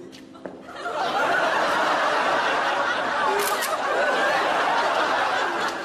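Audience laughter swelling about a second in and staying loud, with two quick phone-camera shutter clicks near the middle as a selfie is taken.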